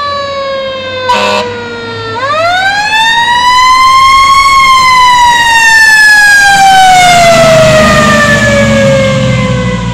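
Fire engine siren winding down, cut across by a short horn blast about a second in, then winding up again to a peak and slowly falling as the fire engine passes close by. Its engine and tyres on the wet road rumble in underneath near the end.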